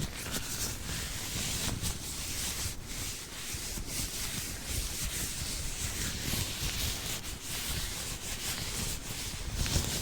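White latex gloves rubbed and crinkled close to the microphone, making a continuous rubbing, scratchy sound with irregular small crackles.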